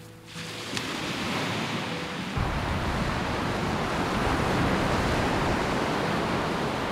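Surf breaking and washing up a sandy beach: a steady rushing wash that grows louder about two and a half seconds in.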